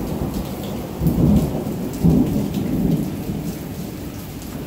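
Steady rain falling with thunder rumbling; the rumbles swell about one and two seconds in.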